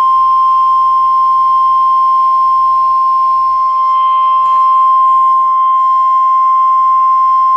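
NOAA Weather Radio 1050 Hz warning alarm tone: one loud, steady, high-pitched tone that alerts listeners to a warning about to be read, here a tornado warning.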